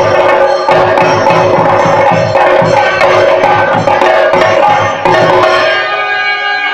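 Temple drums, chenda played with sticks, beaten in a fast, even rhythm under a steady ringing tone. The drumming stops near the end, and the ringing fades away after it.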